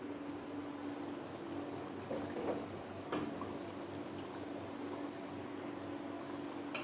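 A glazed terracotta lid lifted off a clay cooking pot, with a couple of light knocks about two and three seconds in, over a steady hiss and low hum.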